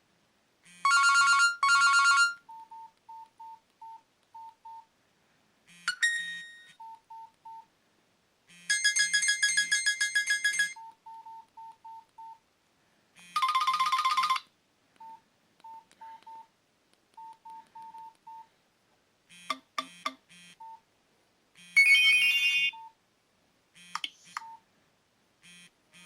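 Nokia C2-01 mobile phone playing a run of its preloaded ringtones and alert tones, each a short electronic melody of a second or two. Between them come brief single-pitch beeps, a few at a time.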